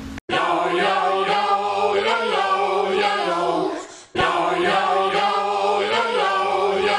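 Choral singing: several voices holding sustained chords, starting suddenly just after a brief silence and breaking off for a moment about four seconds in before resuming.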